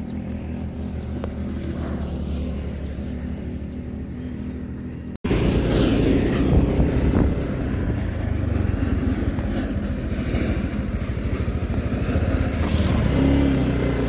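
An engine running steadily. About five seconds in the sound cuts out for an instant, then comes back louder, with a rushing noise over the engine.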